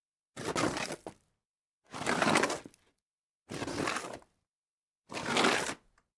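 Something sliding across dirt, four times: each slide is a short gritty scrape lasting just under a second, with a silent gap before the next.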